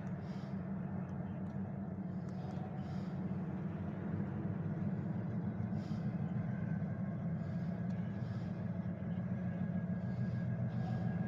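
Low, steady engine rumble that grows a little louder about four seconds in.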